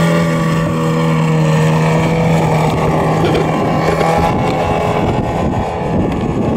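Engine of a 50% scale radio-controlled Piper Cub model plane, a brand-new engine not yet broken in, running steadily at takeoff power as the plane lifts off and climbs. The steady drone weakens after about four seconds as the plane climbs away, giving way to rougher wind noise on the microphone.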